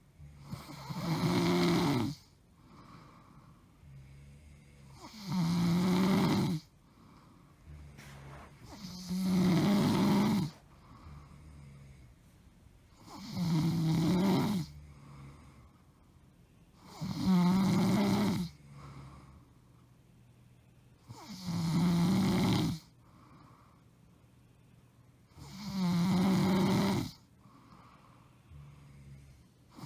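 A woman snoring loudly in her sleep: seven long snores, one about every four seconds, with quiet gaps between them.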